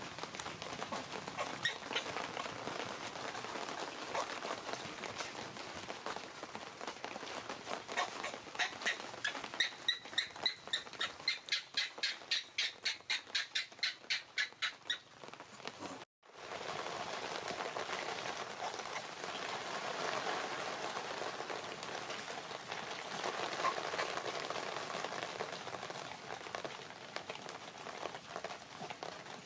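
A rapid, evenly spaced run of short high squeaks from an animal, about three a second for several seconds, over a steady outdoor background hiss. The sound drops out briefly right after the squeaks end.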